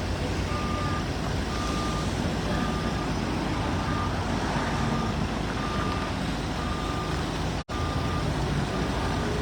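A vehicle's reversing alarm beeping steadily, one short high tone about every three-quarters of a second, over a constant engine and yard rumble.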